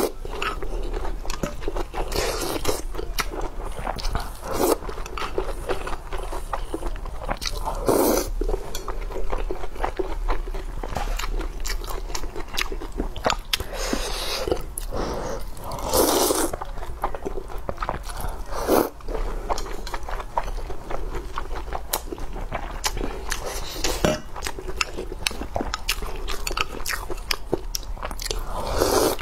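Close-miked chewing and biting of spicy hot pot meat, with many small crunchy, wet clicks and a louder burst every few seconds as a new mouthful goes in.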